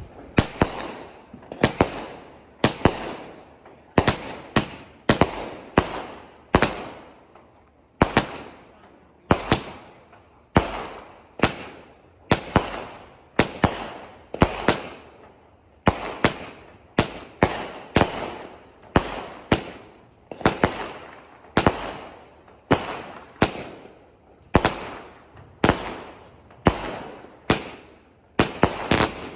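Consumer fireworks going off in a steady series of sharp bangs, about one to two a second, each fading away quickly.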